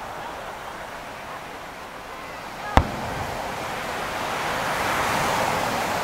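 An aerial firework shell bursting with one sharp bang almost three seconds in, over a steady murmur of crowd voices and surf.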